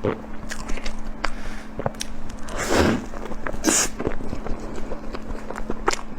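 Close-up eating sounds: a string of wet clicks of chewing and biting, with a short noisy rush about halfway through, over a faint steady hum.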